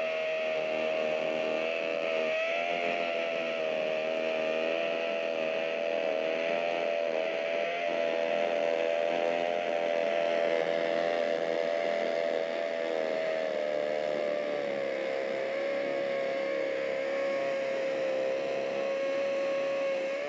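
Flex cordless hammer drill in hammer mode, on speed 2, boring into a concrete block with a new masonry bit: a steady, loud buzzing drone that sags slightly in pitch about three-quarters of the way through and stops at the very end.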